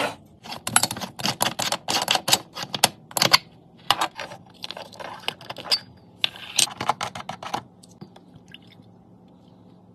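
Rapid clicks and clinks of a metal moka pot being handled and taken apart, the top chamber coming off the base. The clicking stops about eight seconds in, leaving a faint steady hum.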